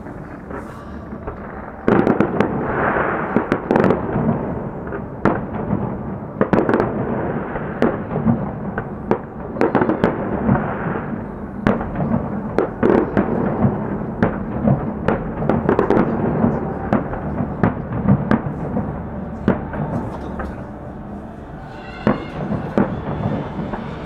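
Fireworks display: aerial shells bursting in an irregular series of sharp bangs, which begins in earnest about two seconds in and keeps coming.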